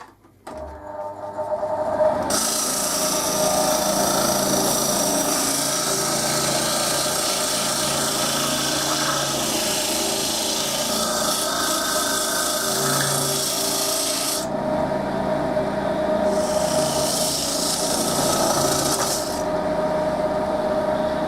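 Wood lathe motor starting up and running with a steady hum while sandpaper is held against the spinning wooden cup. The sanding makes a rasping hiss in one long pass, then a shorter one after a brief break.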